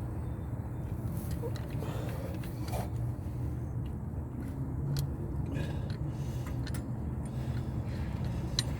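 A few light metallic clicks and scrapes as the short shift plate and its bolts are fitted by hand on the shifter assembly, over a steady low background rumble.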